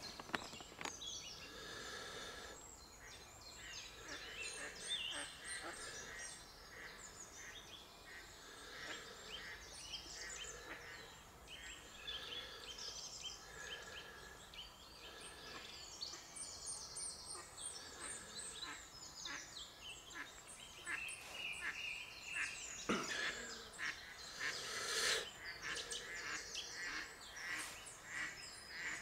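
Birds singing and calling continuously, with honking calls among them, and a single sharp click late on.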